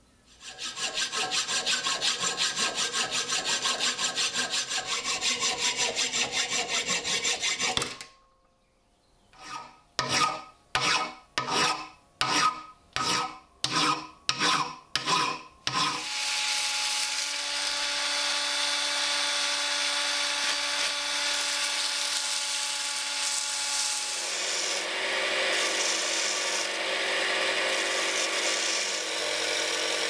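A steel rod being abraded. First comes fast, even rasping for several seconds, then a run of about nine separate scraping strokes. After that a cordless drill whines steadily as it spins the rod against sandpaper, and about 24 seconds in the sound turns harsher as the spinning rod is pressed to the belt of a running belt grinder.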